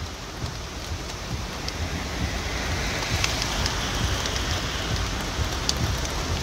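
Rain on a moving car, heard from inside: an even hiss with scattered sharp ticks of drops striking the body and glass, over a low rumble of the car on the wet road. It builds over the first few seconds, then holds steady.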